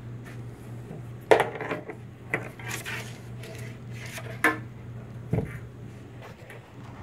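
Clattering and knocking of vintage radio parts being shifted and lifted inside a cardboard box: a sharp knock about a second in, several more rattles over the next few seconds, and a dull thump near the end.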